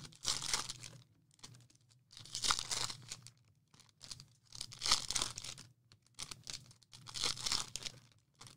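Trading-card foil packs being torn open by hand: several separate rips, each followed by the wrapper crinkling, about every one to two seconds.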